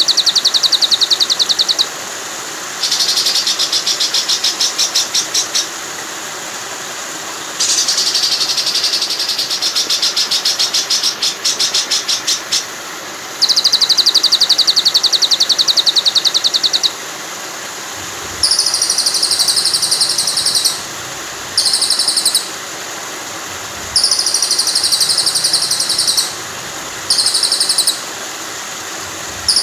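Recorded songbird trills: rapid, buzzy rattling phrases several seconds long, then shorter bursts, repeated with short gaps over the steady rush of flowing water. It is a masteran track for training white-rumped shamas to copy other birds' songs.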